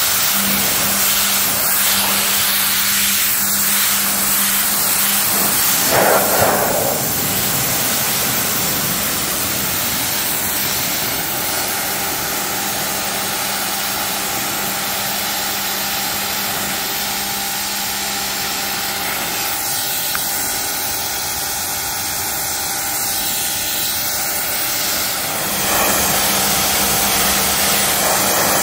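Craftsman 1900 PSI pressure washer running, its water jet hissing steadily against a car's roof, glass and front bumper, with the machine's motor humming underneath. A brief louder splash comes about six seconds in.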